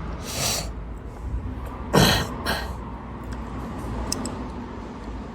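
A man clearing his throat: a loud cough-like burst about two seconds in, a smaller one half a second later, and a breathy rush just before.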